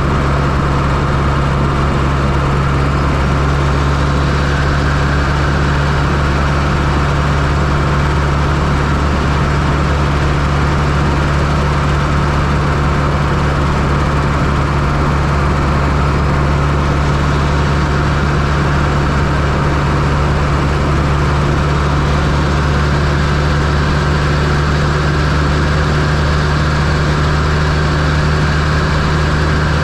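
Fiat Coupe 2.0 16V turbocharged engine running steadily at an even, unchanging pitch, heard close up from inside the engine bay.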